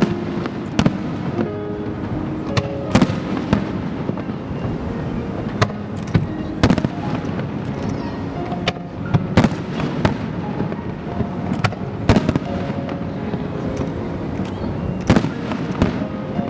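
Aerial fireworks bursting in a rapid, irregular string of sharp bangs, with music playing underneath.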